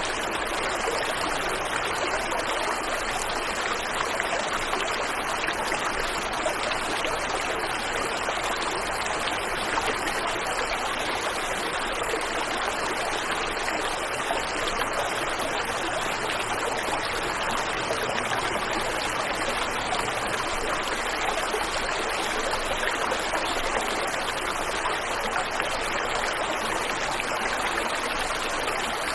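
Waterfall and river water rushing steadily, an even, unbroken splash and hiss.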